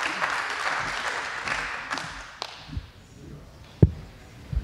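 Audience applause that dies away over the first few seconds, then a few dull thumps, the loudest shortly before the end.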